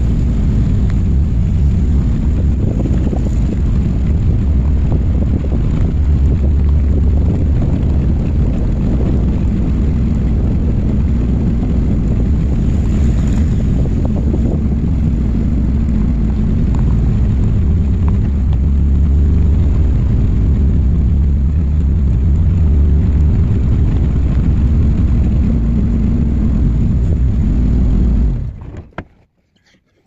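Steady low rumble of a truck driving slowly over dirt farm tracks, picked up by a camera riding on its hood, with wind buffeting the microphone. It cuts off suddenly a couple of seconds before the end.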